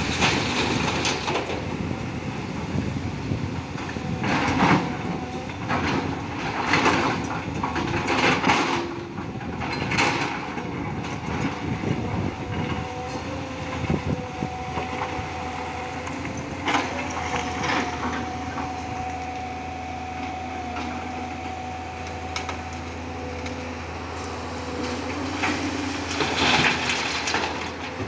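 Tata Hitachi 200 excavator working: a steady machine drone with a few held tones, broken by loud, noisy clattering bursts every few seconds, bunched in the first third and again near the end.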